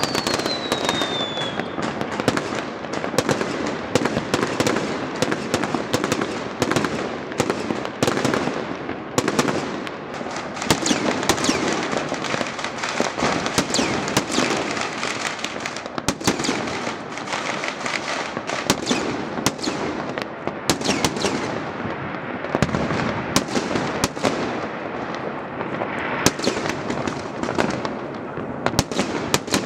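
Fireworks and firecrackers going off without pause from many spots at once: a constant crackle with frequent sharp bangs and booms. Right at the start there is a short falling whistle.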